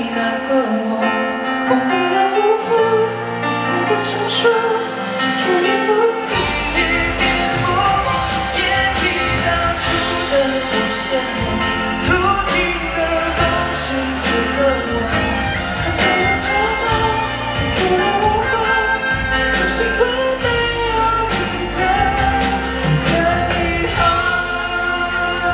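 Live pop ballad: a male singer sings into a microphone over the backing music, with the bass and drums coming in fuller about six seconds in.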